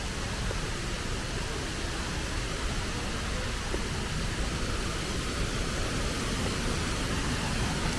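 Wachirathan Waterfall's falling water: a steady rushing roar with a deep rumble underneath.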